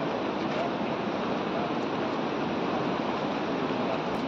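Steady, unbroken rushing of fast-flowing water.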